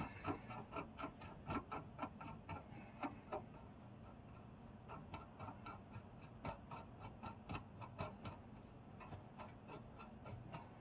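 Light metallic clicking in irregular runs of a few clicks a second, with a short pause a little before the middle, as a tie rod end and its jam nut are worked onto the threads of the inner tie rod by hand.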